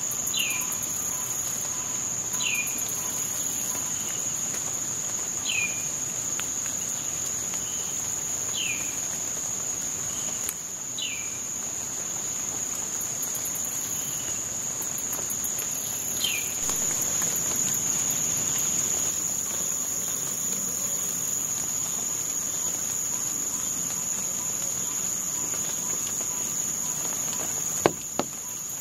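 Swamp insects holding one steady, high-pitched drone over a steady patter of water dripping through wet foliage after rain. A bird repeats a short, falling call every two to three seconds through the first half, and a sharp click comes near the end.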